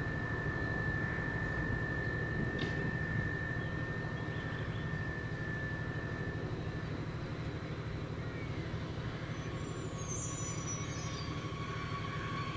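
TER ZGC regional multiple unit approaching the station: a steady low rumble with a high steady whine that stops about halfway through, then a lower whine that starts and grows louder near the end as the train draws closer.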